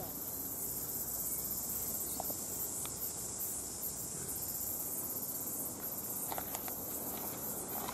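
Steady high-pitched chorus of insects chirring, with a few faint ticks.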